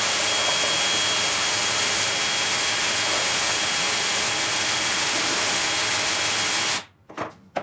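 DeWalt cordless drill driving a homemade belt sander, running steadily with a high motor whine and the hiss of the sanding belt on a pine board. The sound cuts off abruptly near the end, followed by a few short knocks.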